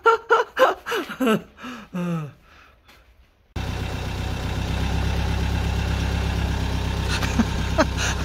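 A Hymer motorhome's engine idling steadily. It comes in abruptly about three and a half seconds in, after a short voice and a quiet moment.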